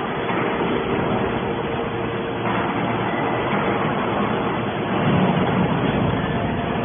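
Fully automatic hydraulic baler running: a steady mechanical drone with a faint steady hum in it, swelling a little about five seconds in.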